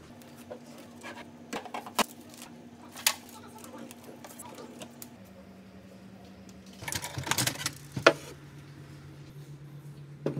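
Soft background music of long held low notes that step to a new pitch every few seconds, with scattered clicks and knocks of objects being handled. About seven seconds in, a burst of clatter and rustling ends in a sharp knock, the loudest sound.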